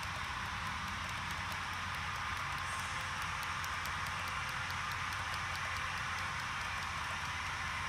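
HO-scale model freight train rolling along the track: a steady rolling hiss over a low hum, with faint rapid clicking of the wheels.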